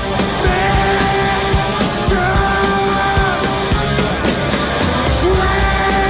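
Rock band playing live: drums with steady cymbal hits under electric guitar, and a singer holding long notes that repeat every couple of seconds.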